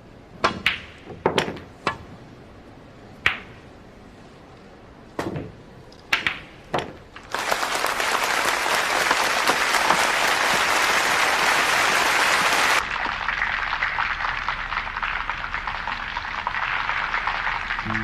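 Sharp clicks of billiard balls struck by a cue, several single knocks over the first seven seconds, then an audience breaks into applause. The applause drops suddenly to a softer level about five seconds later.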